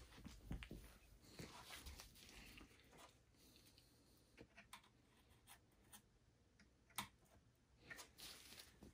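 Near silence broken by a few faint, scattered clicks and light taps, the clearest about seven seconds in, as a flathead screwdriver works at the plastic latch of a PC motherboard's PCIe x16 slot to release the graphics card.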